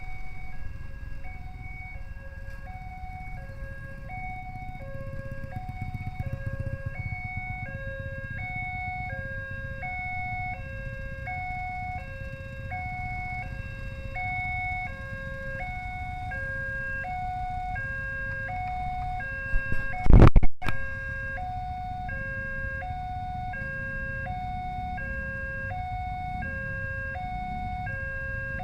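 Railway level-crossing warning alarm sounding a steady two-tone ding-dong, high and low notes alternating about every half second, warning that a train is coming, over the low rumble of idling motorcycles. About two-thirds of the way through there is one brief loud thump.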